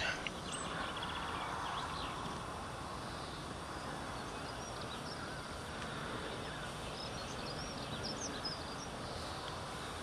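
Steady outdoor background noise with a few short, high, faint bird chirps, most of them in the second half.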